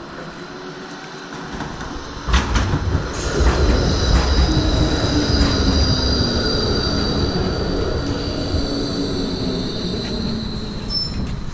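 Melbourne tram pulling into the stop: a rising rumble of wheels on rails with a knock about two seconds in, then a high, steady wheel squeal. A lower tone falls slowly in pitch as the tram slows to a stop alongside.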